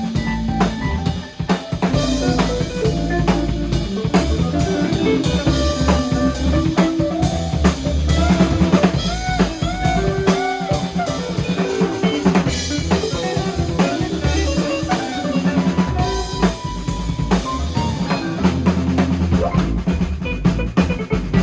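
Drum kit playing a steady groove, with kick, snare and rimshots, alongside other pitched instruments in a band jam.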